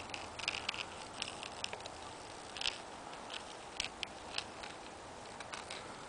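Fine-tipped drawing tool scratching on a drawing surface as it traces lines: irregular short scratches and taps, some louder than others, over a faint steady background hiss.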